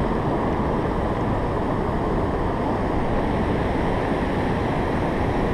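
Steady, even rush of fast-flowing river water below a dam.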